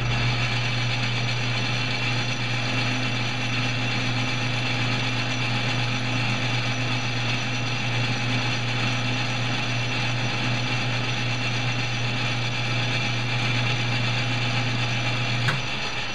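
Metal lathe running with its three-jaw chuck spinning during a light skim pass on a Delrin workpiece: a steady motor and gear-train hum. Near the end there is a click and the sound begins to die away.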